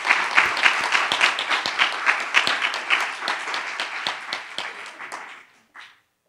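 Audience applauding, a dense patter of many hands clapping that thins out and dies away about five and a half seconds in.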